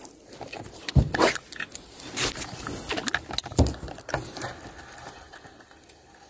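Spinning reel being cranked to retrieve a lure, with the handle and rotor ticking and rattling, and a few sharp knocks, the loudest about a second in and again past the halfway mark.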